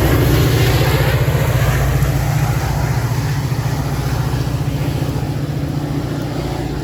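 Metra diesel locomotive's engine running with a deep, pulsing rumble that slowly fades.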